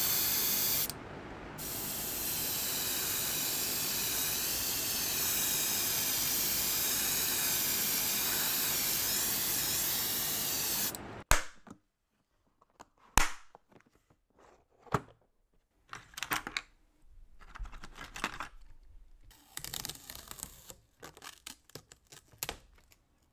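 Spray paint hissing steadily onto a plastic model car body for about eleven seconds, with a short break about a second in. It cuts off suddenly and is followed by a sharp click and scattered small clicks, taps and rustles: hands handling a clear plastic organiser box and tools, then masking tape being pulled and laid on the body near the end.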